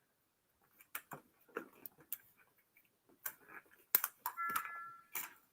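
Product packaging being handled and opened: scattered sharp clicks, taps and short rustles of cardboard and plastic, with a brief high, steady squeak-like tone about four and a half seconds in.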